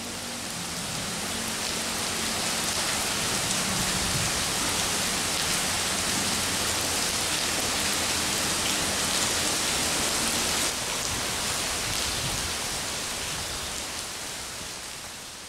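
Heavy rain pouring down in a dense, steady hiss, heard from shelter under a concrete road overpass. It fades in at the start and fades out near the end.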